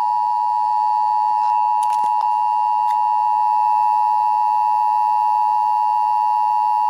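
Emergency Alert System two-tone attention signal: two close pitches sounding together as one steady, loud, harsh tone, opening a broadcast Required Monthly Test.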